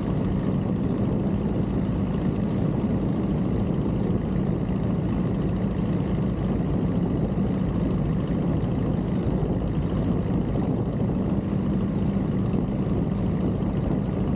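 Piper J3 Cub's four-cylinder engine and propeller droning steadily in flight.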